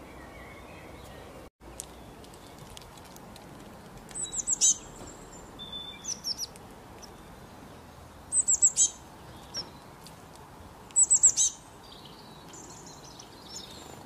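A small songbird calling in short bursts of rapid, high, falling notes, three loud bursts about three seconds apart with a softer one between, over faint outdoor background hiss.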